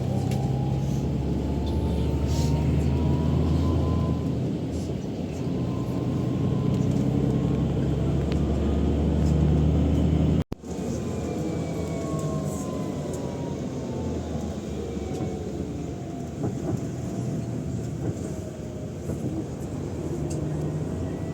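A vehicle's engine or motor running steadily, heard from on board, with a low hum and a faint whine that rises and falls in pitch. It cuts off abruptly about halfway through and resumes straight away.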